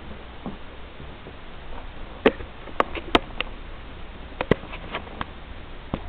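Handling noise from the open cardboard-and-foam packaging: a scattered series of sharp clicks and taps, about nine, beginning about two seconds in.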